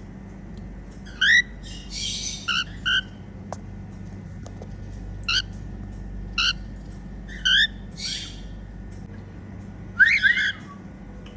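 Female cockatiel calling in short whistled chirps, each a quick rising note, spaced a second or two apart, with a couple of harsher scratchy chirps between them and a quick run of several notes about ten seconds in. These are the contented chirps the title calls happy sounds.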